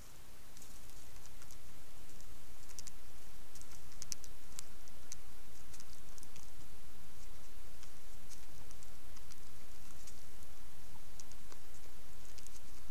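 Faint, scattered light clicks and rustles of wild turkeys stepping and pecking in dry, burned leaf litter, over a steady low hum.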